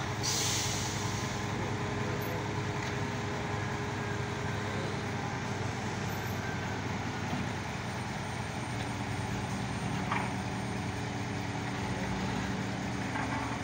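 Mobile crane's engine running steadily while it holds a chiller unit suspended on its hook, with a short hiss right at the start.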